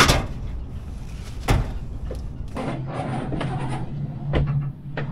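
Sharp knocks and clacks of hard parts being handled during installation work. The loudest knock comes right at the start and another about a second and a half in, then a run of smaller clicks and knocks over a steady low hum.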